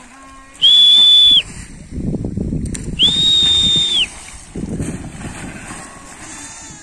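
Two long, shrill whistles, each about a second long, the second starting about three seconds in, from a herder urging sheep on. Between and after them, sheep splash as they jump off the bank into the water.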